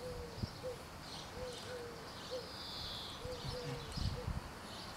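A bird calling with a run of short, low hooting notes at uneven spacing, with a higher buzzy call about halfway through. A few low bumps sound near the end.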